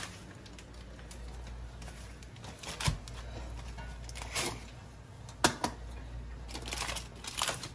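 A metal springform pan being unlatched and its ring lifted off and set down on a stone counter: a few scattered clicks and knocks, the loudest about five and a half seconds in, over a low steady hum.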